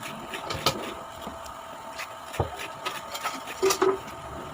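Raw jicama being bitten and chewed: irregular crisp crunches and wet mouth clicks, with a double crunch near the end.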